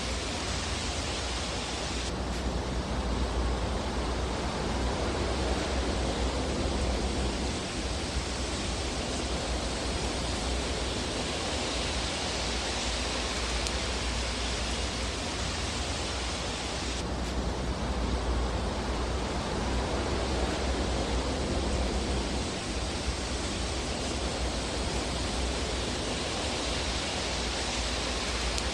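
Steady, even rushing noise of a fireplace sound track, a low rumble and hiss with no distinct crackles or pops. The tone of the hiss shifts slightly twice, about 15 seconds apart, as in a looped recording.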